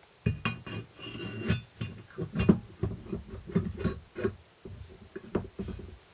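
Irregular clunks and clatter of metal parts as the aluminium front output housing of a Land Rover Series 3 transfer box is handled and turned over on the bench while the front output shaft is fitted into it, with a brief metallic ring about a second in.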